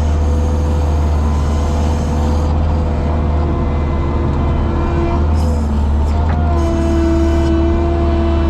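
Engine of farm machinery running steadily with a constant low hum.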